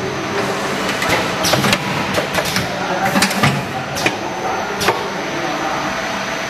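Automatic sauce pouch packing machine running: a steady mechanical hum with repeated clicks and short hissing bursts from its moving parts.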